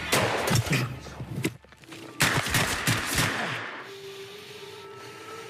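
Film sound of sniper rifle fire: two loud shots about two seconds apart, each with an echoing tail. A low held musical tone follows.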